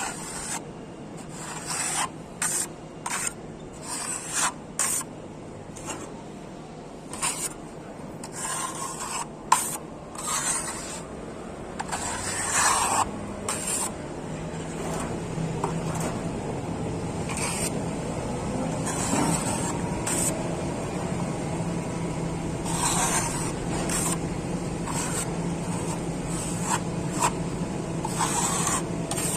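Hand plastering tool scraping and rubbing across a wall in short, irregular strokes, working a fine-grain fibre-reinforced skim coat. A steady low hum comes in about halfway.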